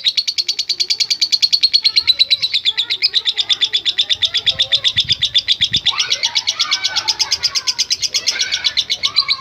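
Lovebird giving a long, unbroken ngekek chatter: a fast, even stream of sharp, high notes, about ten a second.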